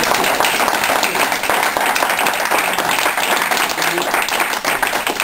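Small audience applauding, many hands clapping steadily, with some voices among it.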